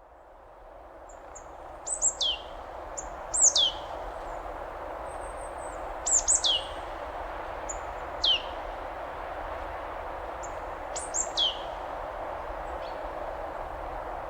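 Steady rush of falling water from a waterfall, fading in over the first few seconds. A bird repeatedly gives short, high calls that sweep steeply downward, about five times, and these calls are the loudest sounds.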